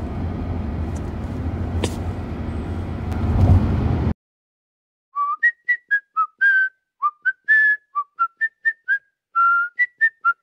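Car cabin road noise, a steady low rumble, that cuts off about four seconds in. After a second of silence, a whistled melody of short, quick notes begins.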